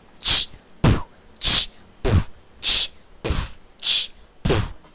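A person making rhythmic mouth noises: a sharp hiss alternating with a short, low vocal sound that falls in pitch, four of each, one pair about every 1.2 seconds.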